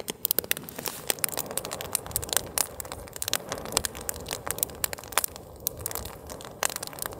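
Wood campfire crackling with many sharp, irregular pops, burning fiercely in a strong wind that adds a low, gusting rumble.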